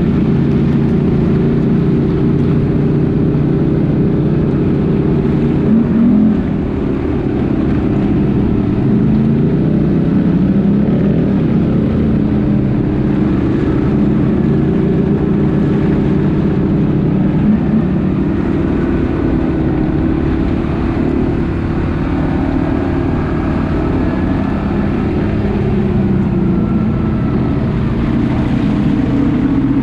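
ATV engine running under way, its pitch wavering up and down as the throttle changes. Fainter whines from other engines rise and fall in the second half.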